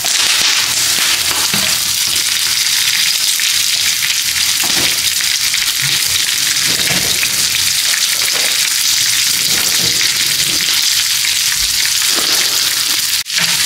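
Garlic, curry leaves, pandan leaves, green chillies and fenugreek seeds frying in hot oil in a pan: a steady sizzling hiss with scattered small pops.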